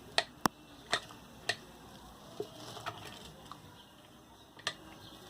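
Needle-nose pliers clicking against a ceiling fan's threaded metal fitting as it is unscrewed: a handful of sharp clicks at irregular intervals.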